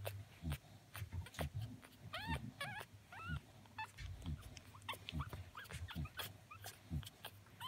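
Three-day-old cocker spaniel puppies squeaking and whimpering as they jostle for teats while nursing, with a few high, wavering squeaks a couple of seconds in and many short clicks throughout.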